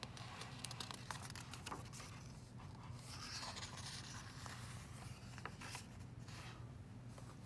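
Faint rustling and scraping of a hardcover picture book's paper pages being turned and pressed flat by hand, with a few soft clicks of the paper. A low steady hum runs underneath.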